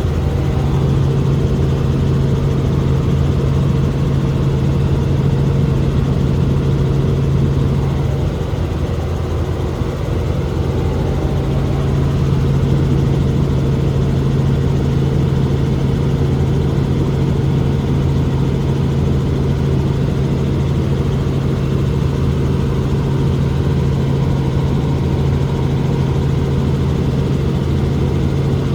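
Helicopter in flight, heard from on board: a loud, steady drone of engine and rotor with a constant low hum that holds level throughout.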